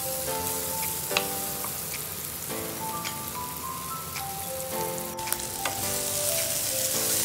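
Tomato, shallots, garlic and chili sizzling in hot oil in a wok while a wooden spatula stirs them, with scattered sharp taps and scrapes of the spatula against the pan, one louder about a second in. A light background melody plays over it.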